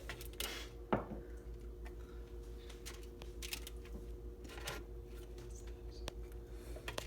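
Faint light clicks and knocks of small handling, with the sharpest about a second in, as s'mores pieces are stood up on a plate inside a microwave. A low steady hum runs underneath.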